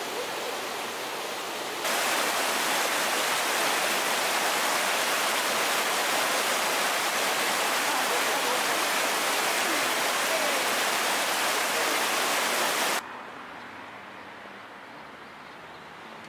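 Spring water pouring steadily from pipes, then, about two seconds in, a louder steady rush of a spring-fed stream tumbling over mossy rocks. Near the end the rush cuts off abruptly to a quiet outdoor background.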